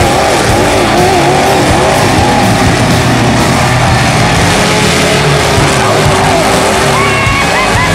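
Demolition derby truck engines revving hard, their pitch rising and falling over a dense noisy din. Music comes in near the end.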